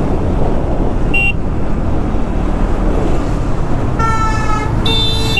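Steady rumble of wind and the single-cylinder engine on a KTM Duke 200 being ridden through traffic, with other vehicles' horns honking: a short toot about a second in, then two longer honks near the end.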